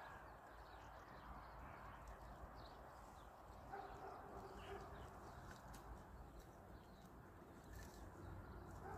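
Near silence: faint outdoor ambience with a few faint animal calls about halfway through.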